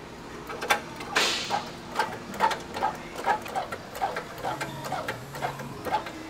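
Hydraulic shop press being pumped in steady strokes, about two or three clicks and creaks a second, as its ram presses a new bushing into a steel lower control arm.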